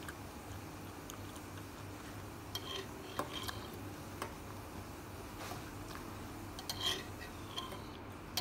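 Metal fork clinking and scraping against a ceramic bowl while twirling noodles: a handful of light, ringing clinks scattered through, bunched more thickly near the end, over a faint steady hum.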